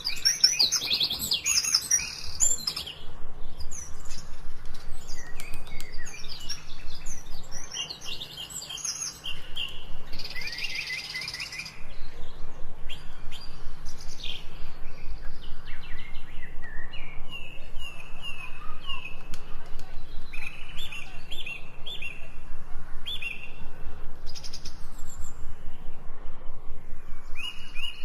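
Several forest birds chirping and singing with overlapping calls, short quick notes and sliding whistles. From about halfway through, a run of short repeated downward-slurred notes keeps coming back.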